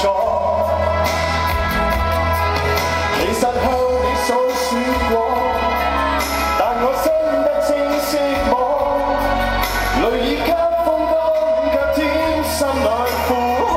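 Male pop singer singing live into a handheld microphone over backing music, with a steady bass line, amplified through the stage PA and recorded from the crowd.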